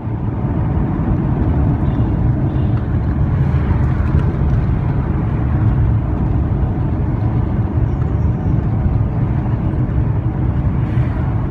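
A car on the move: a steady low rumble of engine and road noise with no pauses.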